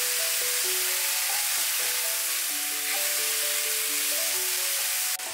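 Soybean sprouts and fried tofu sizzling as they are stir-fried in a wok with a spatula, under soft background music of held notes. The sizzle cuts off abruptly near the end.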